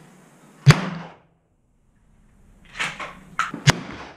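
Two shotgun shots about three seconds apart: one a little under a second in, the other near the end.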